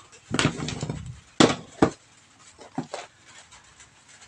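Handling noise of a crimping tool and a LAN cable: a short rustling scrape, then two sharp clicks less than half a second apart, and a few softer clicks later.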